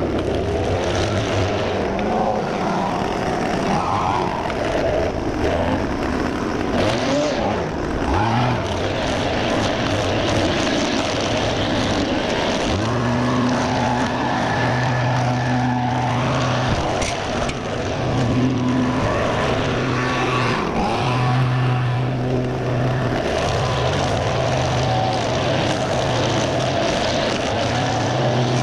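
String trimmer running steadily at speed, its line cutting through overgrown grass and weeds.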